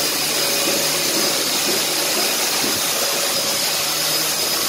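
Electric motors of floor-sanding equipment running steadily, a high whine over an even hiss.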